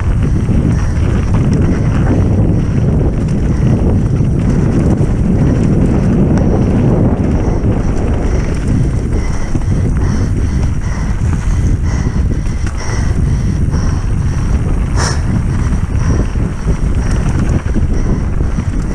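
Heavy wind buffeting the microphone of a mountain bike rider's camera on a fast descent, over a steady low rumble, with scattered clicks and knocks from the bike over the terrain; one sharper knock about fifteen seconds in.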